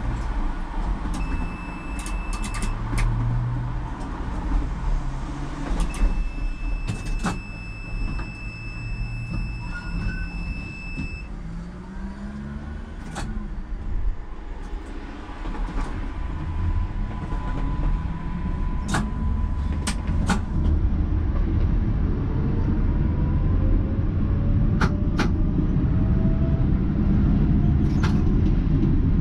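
Tram running on its rails: a steady low rumble with scattered sharp clicks. Two steady high tones sound in the first half, the second lasting about five seconds, and in the last third a motor whine rises slowly in pitch as the tram picks up speed.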